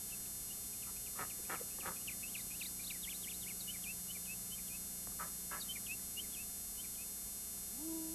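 Small birds chirping and twittering, with several quick falling whistle-like calls in between. Near the end a held low pitched tone begins.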